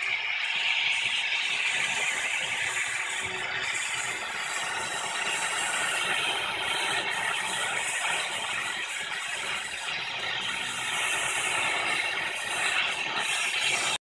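Oxy-fuel torch flame hissing steadily as it heats the hub flange of a rusted-on rear brake rotor to free it.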